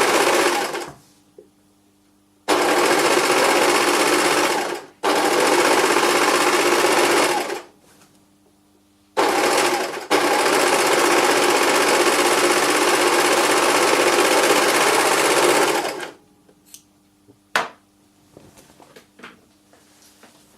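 Sewing machine stitching in bursts, stopping and starting four times and running longest for about six seconds. After it stops, a few light clicks and one sharper knock.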